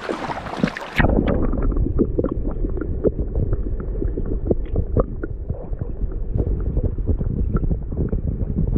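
Fast river current heard underwater through a submerged camera: a loud, muffled low rumble with many small clicks and knocks. About a second in, the splashing sound goes suddenly dull as the camera goes under.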